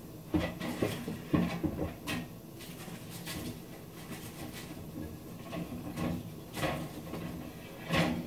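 Scattered knocks and clunks of kitchen things being handled, the loudest about a second and a half in and another near the end.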